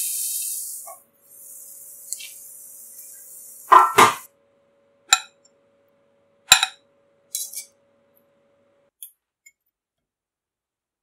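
Food sizzling in a covered frying pan, cutting off about a second in, then a quieter sizzle until about four seconds in. After that come a few sharp clinks and clanks with a short ring: metal tongs setting food down on a ceramic plate.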